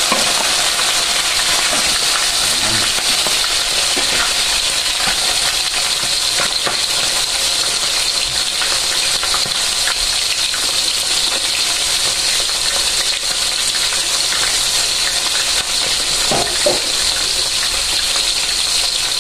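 Chicken pieces frying in hot oil in a wok: a steady sizzle full of small crackles and pops of spattering oil. A brief knock or two sounds about sixteen seconds in.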